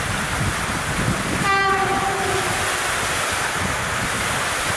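Horn of a Siemens Vectron electric locomotive sounding one short blast of about a second, over a steady rushing noise.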